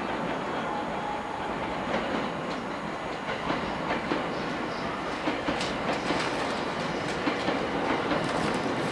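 JR E231-series electric train approaching, with a steady rumble and its wheels clicking over rail joints and points. The clicks start about three and a half seconds in and come more often toward the end.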